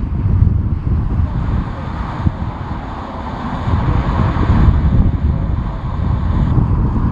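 Strong gusty wind buffeting the microphone, over the engines of a jet airliner that swell around the middle.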